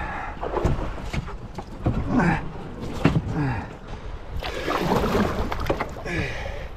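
A canoe being paddled on a river: paddle strokes splash and swirl the water, with several sharp knocks. A man's voice sings along without clear words.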